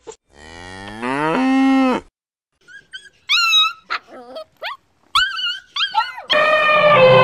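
A long, low call that rises in pitch and then holds, followed by a puppy's string of short, high-pitched whimpers and yips. A loud, harsh animal call starts near the end.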